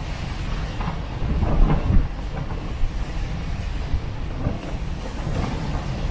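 Gale-force wind buffeting the microphone: a loud, irregular low rumble that swells in gusts, strongest between one and a half and two seconds in.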